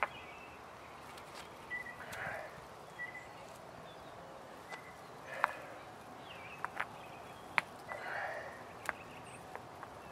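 Rocks being set down and knocking against each other as a fire-pit ring is laid: several sharp clacks, most of them in the second half, with short bits of scraping between them.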